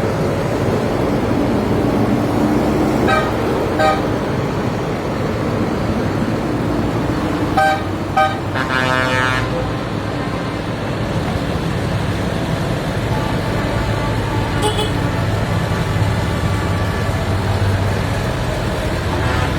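Tractor engines running steadily, with several short horn toots and one longer horn blast of about a second partway through.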